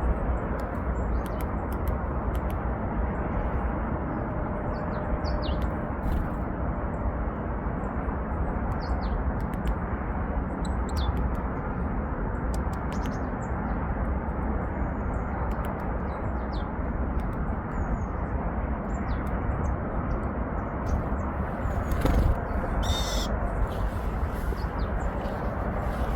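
Short, high calls of small songbirds, varied tits and Eurasian nuthatches, scattered throughout with sharp clicks among them, over a steady low rumble. A louder burst comes about 22 seconds in.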